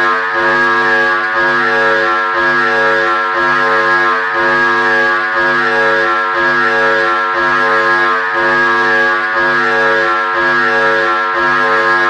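Synthesized emergency-alert alarm tone: a loud, buzzy tone with many overtones, pulsing on and off evenly about one and a half times a second.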